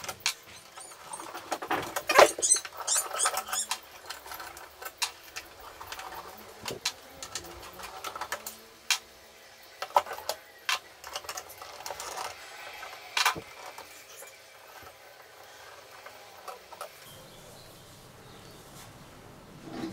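Handwork on a vintage electrotherapy unit's metal faceplate: irregular small clicks, scrapes and light taps as screws are turned out with a small screwdriver and set down in the open case lid. There is a louder burst of scratchy, squeaky scraping about two seconds in and a sharp knock a little past the middle.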